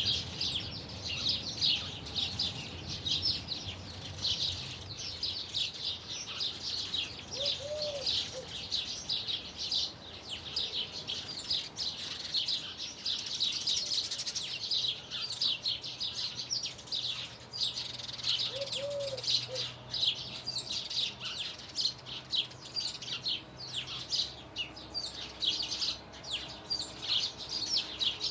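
Many small birds chirping and twittering in a dense, unbroken chorus of short high notes, with a brief lower call twice.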